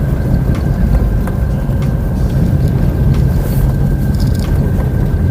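A vehicle being driven along a road: a steady low rumble of engine and road noise, with a faint steady high tone.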